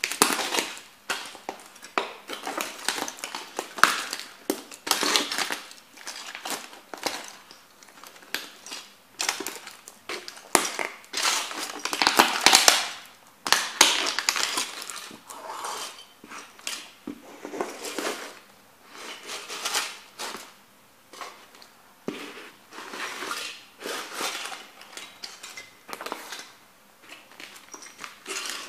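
Shards of a plastic model kit toy car cracking, crunching and clattering under the lug soles of stomping Timberland work boots: a dense, irregular run of snaps and crackles, loudest about twelve seconds in.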